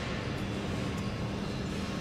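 Steady mechanical hum and rumble of warehouse machinery, with a low steady hum coming in about half a second in.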